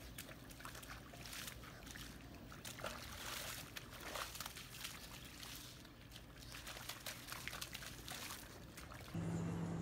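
A dog pawing and splashing in a muddy puddle fed by a garden hose: irregular wet slaps and squelches over trickling water. Near the end a louder steady hum cuts in.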